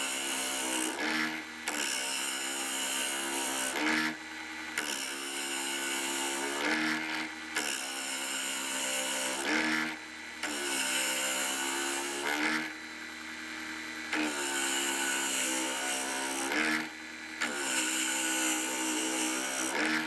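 Mini wood lathe running while a hand-held chisel cuts a spinning wood dowel: a steady hiss of cutting over the lathe motor's tone, in passes of two to three seconds broken by short pauses as the tool comes off the wood.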